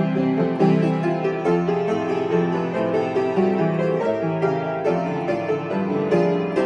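Upright piano being played, chords under a moving melody with notes struck in quick succession.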